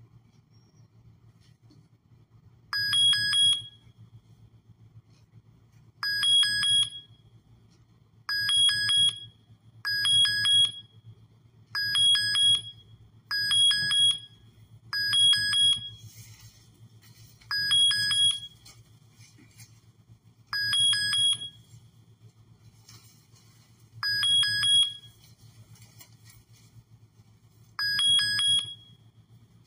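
PPE-detection software's alert sound going off over and over: about eleven short ringing runs of quick strikes, a second or so each, every two to four seconds. It signals a persisting safety-gear violation, here a worker detected without a helmet.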